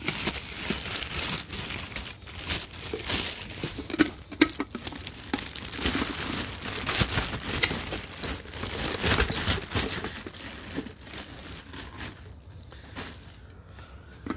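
Packaging crinkling and rustling as a protein skimmer part is handled by hand, with scattered small clicks and knocks; it quietens near the end.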